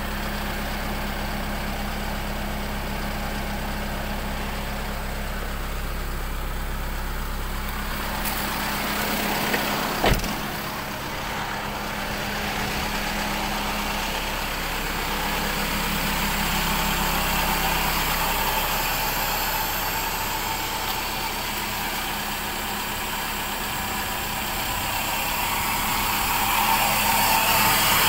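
Isuzu 4JJ1 four-cylinder turbodiesel running steadily during a forced DPF regeneration, heard first inside the cab and then from outside beside the truck. A single sharp knock comes about ten seconds in, and the exhaust hiss grows louder near the end.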